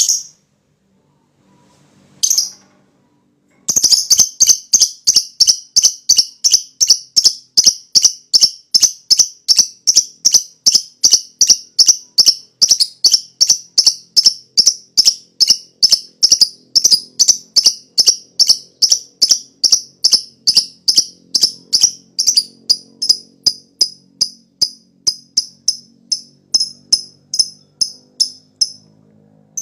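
Lovebird giving a long 'ngekek' chatter: two single shrill chirps, then from about four seconds in a fast, even run of sharp chirps, about three a second, kept up without a break for some twenty-five seconds.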